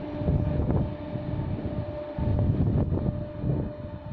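Large ventilation fan of an MRT station facility building running: a steady mechanical drone with a constant hum over an uneven low rumble. The noise is loud enough to read about 66.8 decibels on a phone meter.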